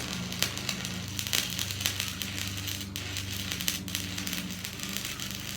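Electric arc welding: the welding arc crackling steadily, with many small pops, over a low steady hum from the welding machine.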